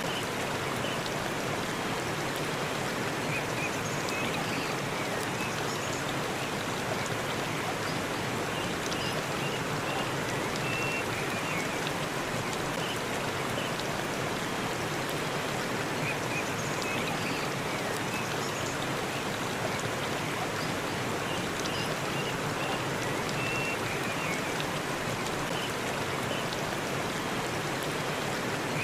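Forest waterfall: water falling and splashing in a steady, even rush. Faint short high-pitched notes come through now and then.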